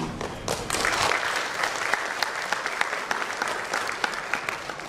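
Audience applauding: a dense patter of many people clapping, starting about half a second in and holding steady.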